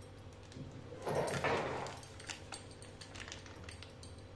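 Plastic packet of buckwheat flour crinkling as it is emptied and shaken over a glass bowl. About a second in there is one louder rustle lasting under a second, with faint small ticks around it.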